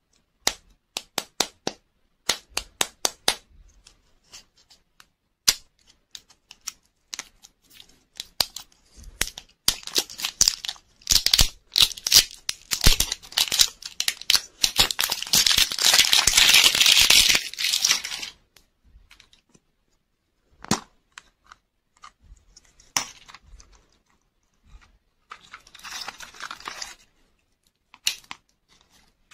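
Plastic wrapper of a lollipop toy ball being torn and peeled off by hand, crinkling loudly for several seconds in the middle, with sharp plastic clicks and taps before and after. The clicks and a shorter crinkle near the end go with the plastic capsule being handled and opened.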